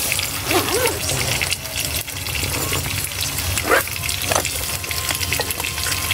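Salmon steak sizzling in oil on a griddle pan over a portable gas camp stove, a steady crackling hiss. Two short, sharp, higher sounds stand out a little after the middle.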